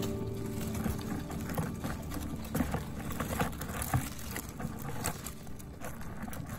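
Leaves and stems of strawberry plants rustling and crackling as hands pick berries, with scattered small clicks and snaps.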